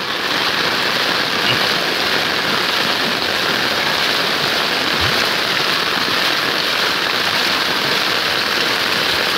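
Heavy rain falling steadily on a flooded street: an even, unbroken hiss of downpour on water and pavement.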